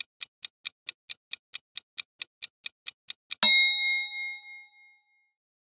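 Quiz countdown-timer sound effect: clock ticks at about four or five a second, then a single bell ding about three and a half seconds in that rings out, marking time up for the answer.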